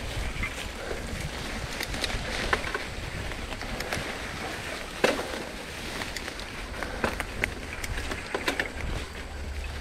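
A bicycle moving over rough ground: irregular clicks and rattles over a steady rushing noise, the sharpest knock about halfway through, with a low wind rumble on the microphone.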